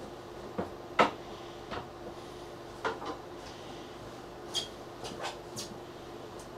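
Scattered light clicks and knocks, about ten of them, the loudest about a second in, over a steady low hum.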